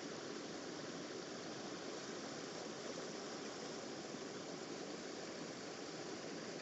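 Small rocky brook running between boulders: a steady, even rush of water.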